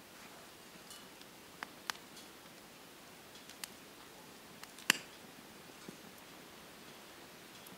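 Small twig fire in a camp wood stove crackling: a few sharp pops spread out over a faint steady hiss, the loudest about five seconds in.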